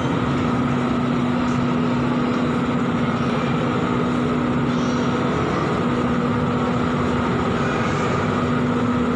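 Steady low hum over an even, unchanging background noise.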